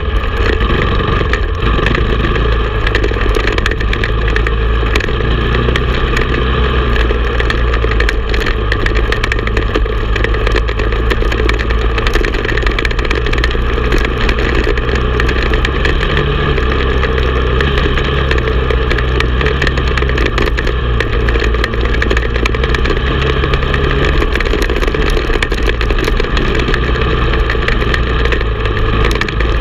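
Honda TRX450 ATV's single-cylinder four-stroke engine running under load while riding a rough dirt trail, heard close up from on board. It is loud and steady, with the engine note shifting a little now and then as the throttle changes.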